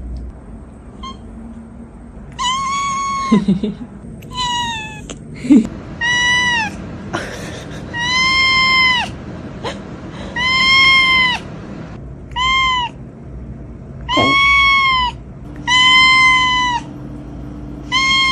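A cat meowing over and over: about nine high, drawn-out meows, each with an even arched pitch, a second or two apart, with a few short knocks between the first ones.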